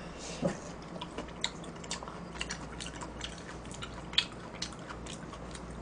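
A person chewing a mouthful of food, with short wet mouth clicks about two a second and one louder click about four seconds in.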